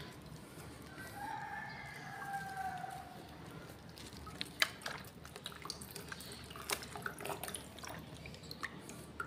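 A rooster crows faintly for about two seconds near the start. From about four seconds in there are scattered drips and small sharp clicks as liquid falls from a wet plastic strainer into a bucket of solution.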